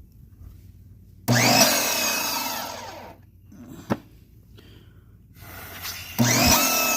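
Greenworks electric pressure washer's motor kicking on twice, each time starting suddenly with a whine that rises, then winding down after a second or two: the on-and-off cycling that it keeps doing. A short click comes between the two runs.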